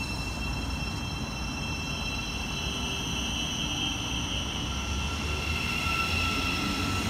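Thameslink Class 700 electric multiple unit pulling away from the platform: a steady electric whine in several high tones over a low rumble, growing slightly louder near the end.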